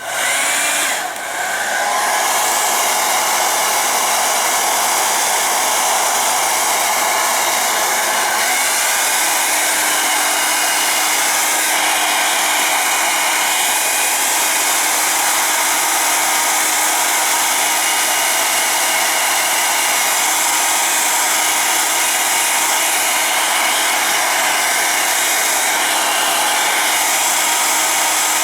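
Handheld blow dryer running steadily with a continuous rushing of air and motor whine. It switches on right at the start, blowing hot air to set the adhesive of a stick-on grip wrap.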